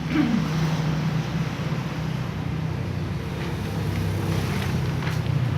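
A steady low mechanical hum of a running motor.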